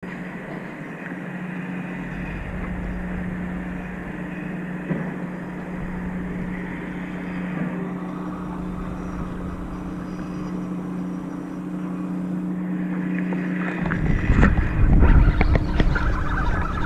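A steady low engine hum, like a boat motor running nearby. About three-quarters of the way in, loud low rumbling and clicking start as the spinning reel is handled close to the microphone.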